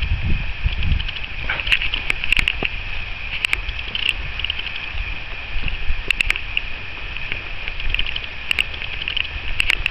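Open-field outdoor ambience: wind rumbling on the microphone under a steady high chirping, with scattered short clicks. The rumble is strongest in the first second.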